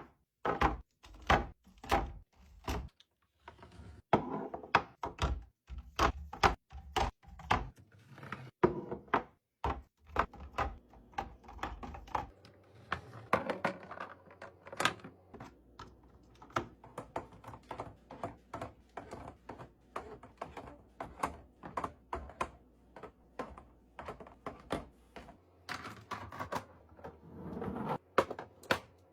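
Items being handled and set down while restocking a fridge: an irregular run of sharp knocks, clicks and thunks, about one or two a second, with stretches of softer rustling in between.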